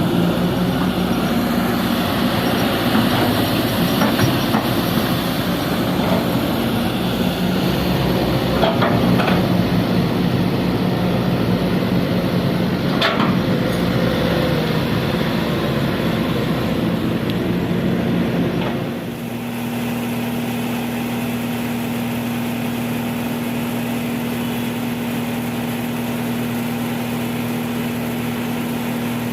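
Kobelco SK200 excavator's diesel engine working under load, with a few sharp knocks, then dropping back to a steady idle about two-thirds of the way through.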